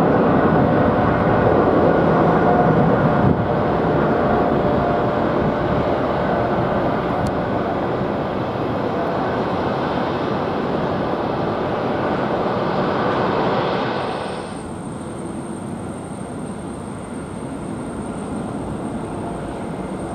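Boeing 777 jet engines at takeoff thrust, a loud steady roar as the airliner rolls and lifts off. About fourteen seconds in the roar drops abruptly to a quieter jet rumble with a thin high whine.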